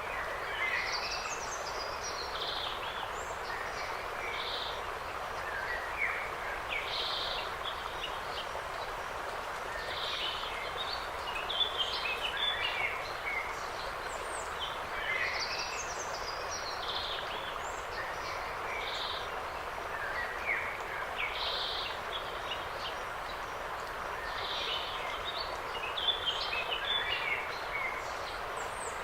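Forest birds singing, several short phrases each sweeping downward in pitch and repeating every few seconds, over a steady background hiss.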